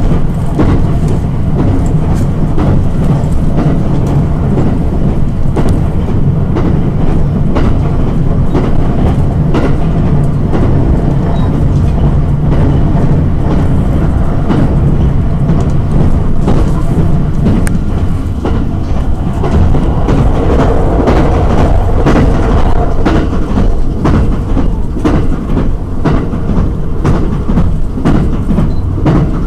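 A new-model electric limited express train running at speed, heard from inside the passenger car: a steady low rumble with the wheels clicking repeatedly over rail joints.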